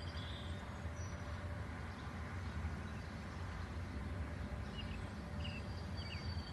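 Outdoor ambience: a steady low rumble with a few short bird chirps, a couple near the start and several more from about four and a half seconds in.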